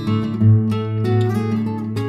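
Background music: an acoustic guitar playing plucked notes in a steady rhythm.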